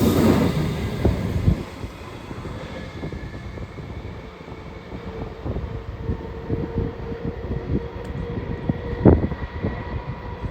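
Alstom Comeng electric train departing: a loud rumble that drops away after about a second and a half, then wheels clicking over rail joints, a faint steady whine and a sharp knock about nine seconds in.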